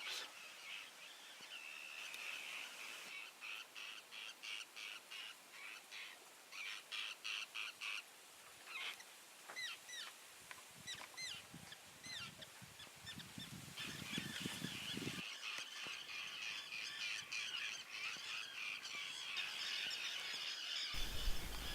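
A colony of terns calling: many harsh, short calls repeated over and over, some falling in pitch, merging into a steady chatter in the second half.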